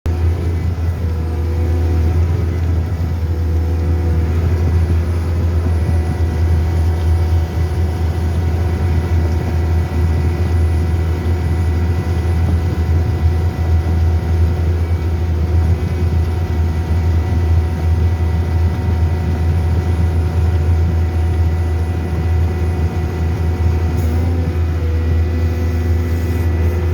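Excavator's diesel engine running steadily with a deep low hum as the machine travels through deep mud.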